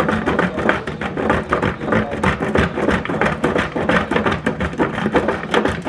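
A block of tasty cheese is rubbed quickly up and down a stainless steel box grater, making a rapid run of rasping scrapes, about five or six strokes a second.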